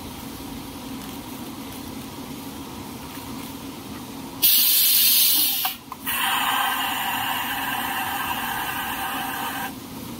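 Steady low hum of the towel paper fold machine. About four seconds in, compressed air starts hissing loudly in a blast of about a second and a half, then after a brief break a second, longer hiss lasts about three and a half seconds and stops just before the end.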